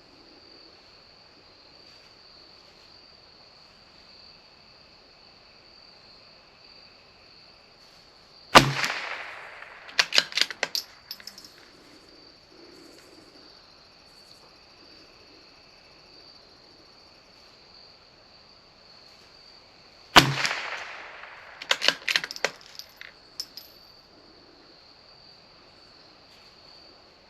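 Two shots from a CZ 457 bolt-action .22 LR rifle, about twelve seconds apart, each a sharp crack followed a second or two later by a quick run of metallic clicks as the bolt is worked to chamber the next round. A steady high-pitched insect trill runs underneath.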